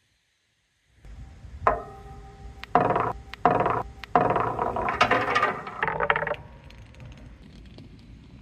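Large balls rolling and rattling through a corrugated plastic bellows hose on a jungle-gym marble run. A single ringing clank comes about two seconds in, then several loud stretches of rattling and scraping before it falls away to a low rumble.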